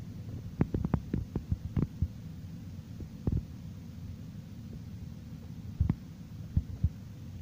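Chihuahua puppies suckling at their mother's teats: a quick run of soft smacking clicks in the first two seconds, then a few more later, over a steady low hum.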